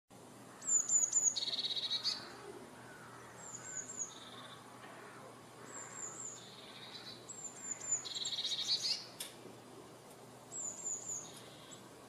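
Eurasian blue tit singing: five repeated phrases, each of two or three high, thin descending notes followed by a lower, fast trill, a phrase every two to three seconds.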